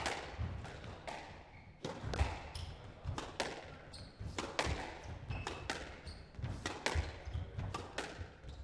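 Squash rally: the ball cracks off rackets and the court walls in sharp knocks at an uneven pace, about two a second, with short squeaks of court shoes on the wooden floor.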